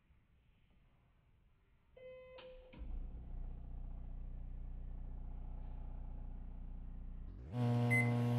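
Hamilton Beach microwave keypad beeping as a button is pressed, then the oven starting up and running with a steady low hum. Near the end the hum swells louder with a short rising shift, and there is another brief high beep as more time is added.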